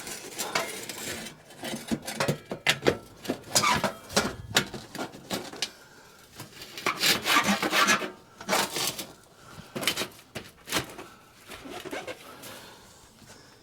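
Sheet-metal stovepipe sections scraping and knocking against each other as a pipe is fitted back into place, in irregular rasping scrapes and short knocks.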